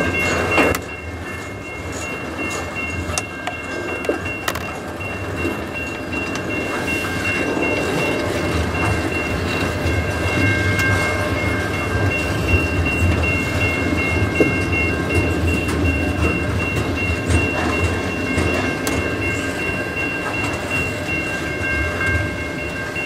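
CN double-stack intermodal freight train rolling slowly past as it gets under way after a stop, its container well cars clacking over the rail joints with a low rumble that builds from about eight seconds in. Steady high-pitched ringing tones sound over it throughout.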